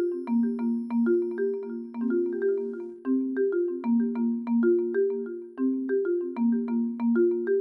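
Television channel ident music: a light mallet-percussion tune of short struck notes that fade quickly, in a repeating pattern.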